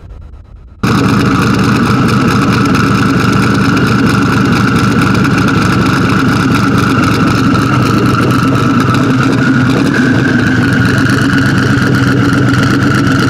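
Twin-turbocharged Ford Mustang SVT Cobra's 281-cubic-inch (4.6-litre) V8 idling steadily. It comes in suddenly about a second in, with a steady high whine over the engine note.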